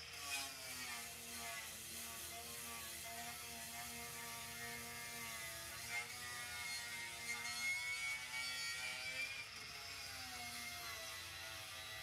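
Corded handheld electric power tool running against a board, its motor pitch wavering up and down as the load changes.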